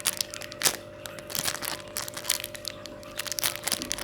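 A foam squishy toy being squeezed and handled, giving a run of small crinkly crackles and clicks.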